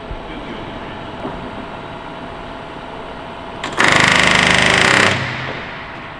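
Pneumatic rivet gun hammering a rivet into aircraft structure in one rapid, very loud burst of about a second and a half, a little under four seconds in, over a steady background hum.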